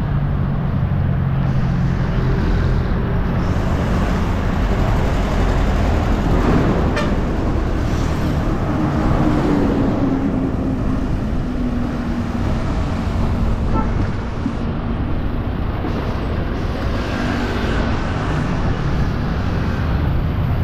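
Road traffic and wind noise heard from a moving bicycle: a steady rumble, with a motor vehicle passing about ten seconds in, its hum falling slowly in pitch.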